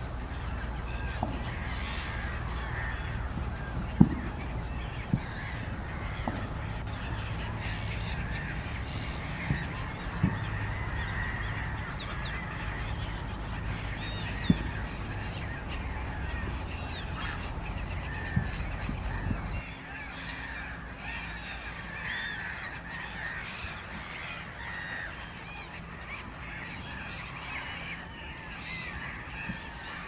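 A flock of waterbirds calling continuously over a low steady rumble, with a few sharp clicks. The rumble cuts out abruptly about two-thirds of the way through while the calling goes on.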